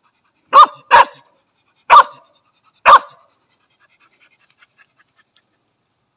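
A young native Vietnamese hunting dog barking four sharp times, one after another, in the first three seconds, at a snake it has found. A few faint rustles follow.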